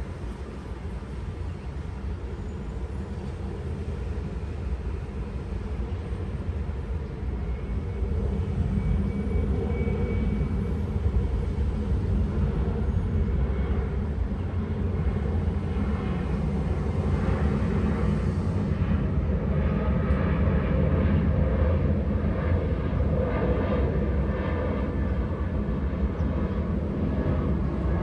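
Steady low rumbling noise that grows louder over the first several seconds, then holds.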